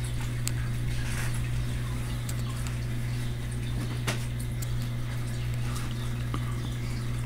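Aquarium pump humming steadily, with faint water trickling and a few light clicks.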